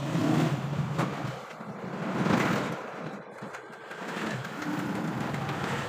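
Motor vehicle engine noise from passing traffic, swelling up twice and then holding steadier before fading away.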